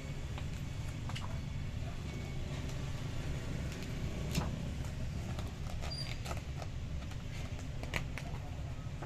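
Glossy magazine pages being handled and turned by hand: short paper crackles and flicks, the sharpest about four seconds in and again near the end, over a steady low hum.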